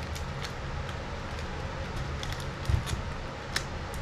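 Light handling noise of a small metal camera ball-head mount being turned in the hands, with scattered faint clicks, a dull bump near the middle and a sharper click shortly after, over a steady low hum.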